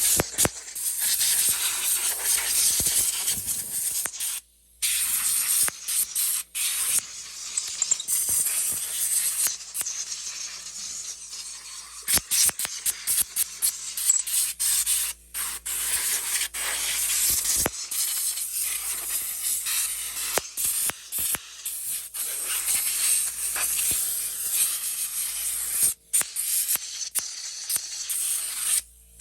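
Compressed air hissing from a blow gun on an air compressor hose, blowing cleaner and dirt off an RC truggy. The loud hiss cuts off and starts again many times as the trigger is released and squeezed.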